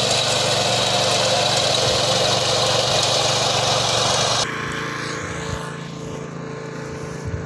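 Petrol engine of a walk-behind fodder reaper running steadily while its cutter bar mows grass. About four and a half seconds in, the sound drops suddenly to a quieter, steady engine hum.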